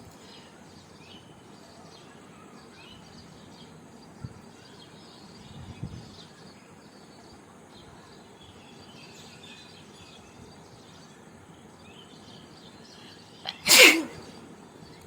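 A woman sneezes once, loudly, near the end.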